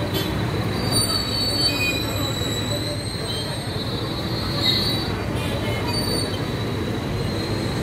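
Heavy-haul puller truck and trailer crawling past with an oversized load: a steady low diesel rumble under a high-pitched squeal from the rig that swells about a second in and again around the middle.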